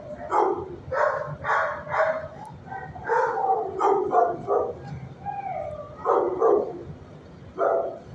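Dog barking repeatedly in short bunches of barks, with a brief wavering whine a little past halfway.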